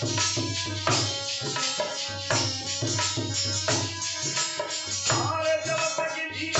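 Harmonium playing a melody over a dholak drum and the jingles of a chimta keeping a steady beat: an instrumental passage of North Indian folk music.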